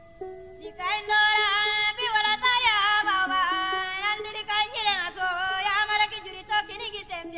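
Music: a woman singing a wavering, ornamented melody over a steady held instrumental accompaniment. The voice comes in about a second in.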